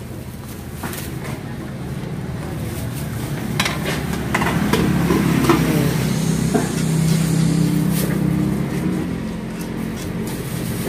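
Spoon and crockery clinks as a plate of lontong Madura is mixed with peanut sauce, over a steady motor-vehicle hum that grows louder through the middle and then fades as a vehicle passes.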